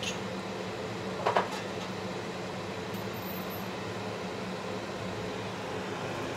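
Steady hum of a kitchen range-hood extractor fan running over the stove, with a short double clink or knock about a second in.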